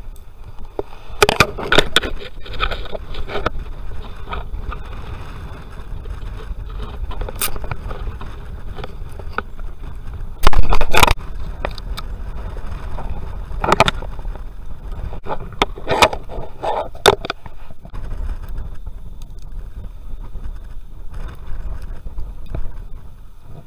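Scrapes, clicks and cracks of a blue crab being broken and cut in half for bait on a pier rail, over a steady low rumble. One loud, rough burst of noise comes about ten seconds in.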